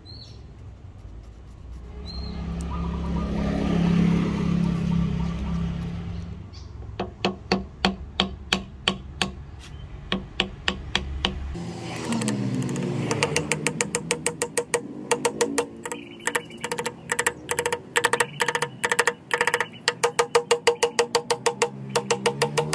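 Hand tools working wood: a swelling rush of noise for a few seconds, then a long run of quick, regular strokes, about three a second, each with a short ring.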